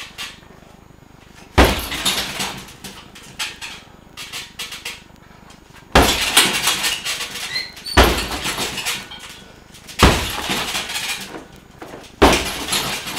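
Five heavy strikes, roundhouse kicks among them, thudding into a chain-hung Everlast heavy bag. The last four land about two seconds apart, and each is followed by the chain rattling and jingling as the bag swings.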